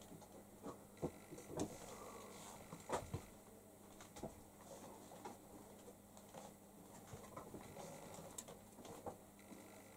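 Near silence: faint room tone with a low hum and scattered small clicks and knocks.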